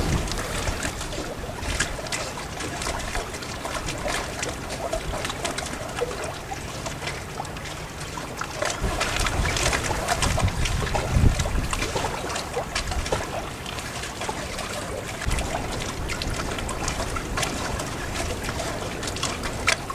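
Wind buffeting the microphone outdoors: an uneven noisy rush, strongest in the low end, with a few scattered sharp clicks.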